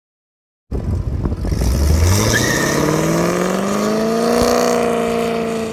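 1997 Corvette C5's LS1 V8 accelerating hard from a launch, its engine note rising steadily in pitch for about three seconds before levelling off. It starts abruptly about a second in.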